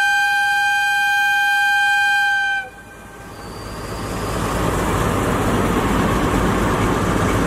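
JNR Class DE10 diesel locomotive sounding its horn in one long, steady blast that cuts off sharply about two and a half seconds in. Its diesel engine then throttles up as it pulls away, the noise building over the next couple of seconds and holding steady.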